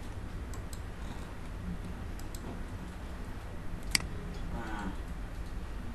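Computer mouse clicking: a few faint clicks, then one sharper, louder click about four seconds in, over a low steady hum.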